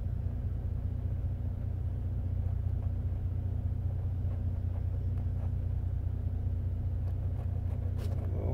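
Steady low rumble of a vehicle engine idling, heard from inside the cab.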